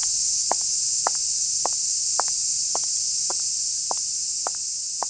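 Even ticking about twice a second, some ticks doubled, over a steady high-pitched hiss like a chorus of insects.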